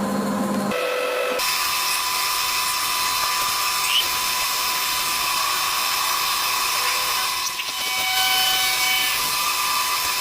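A small high-speed power tool, a miniature lathe or rotary tool, running with a steady high-pitched whine over a hiss of cutting. Its tone shifts briefly near the start and again about three-quarters of the way through.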